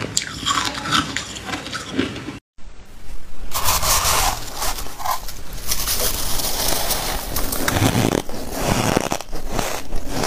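Close-miked crunching of ice being chewed: sharp bites and cracks of hard ice for the first couple of seconds. Then, after a brief silent break, dense, continuous crunching of fluffy shaved ice eaten by the spoonful.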